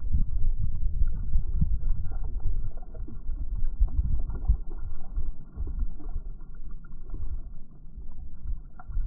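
Gusty wind rumbling on the microphone of a kayak out on the water, with faint irregular splashes and knocks of water and paddle.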